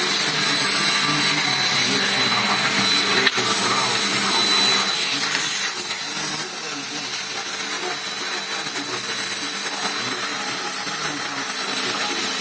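Vacuum cleaner running steadily with a high, even whine, and a single click about three seconds in.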